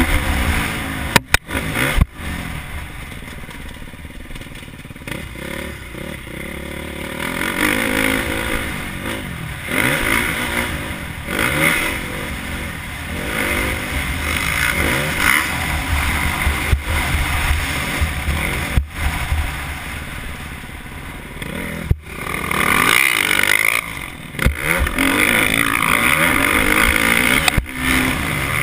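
KTM 350 SX-F four-stroke single-cylinder motocross engine being ridden hard, its pitch rising and falling over and over as the throttle opens and closes through the gears, with a few sharp knocks along the way.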